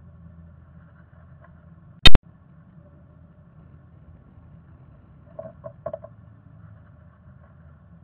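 A low steady hum with a single very loud sharp pop about two seconds in. About five and a half seconds in come a few soft scratchy taps from a black-capped chickadee shifting about in its moss-and-fur nest cup.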